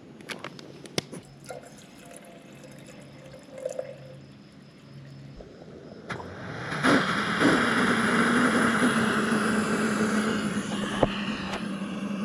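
Backpacking stove heating a pot of water for a trail meal: a few light clicks, then from about six seconds in a loud, steady hiss with a low hum underneath.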